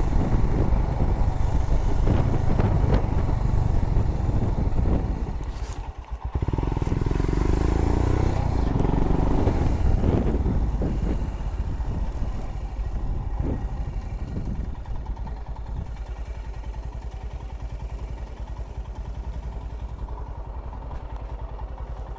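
Royal Enfield Himalayan single-cylinder motorcycle engine running, dropping away briefly about six seconds in, then pulling again before settling into a quieter, even running note for the second half.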